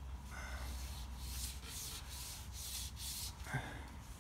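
280-grit wet and dry paper wrapped around a crankshaft big-end journal of a Land Rover Ingenium diesel, worked back and forth by hand with a pull cord: a rhythmic rasping scrub of repeated strokes. It is the journal being polished to remove the remains of a damaged big-end shell bearing.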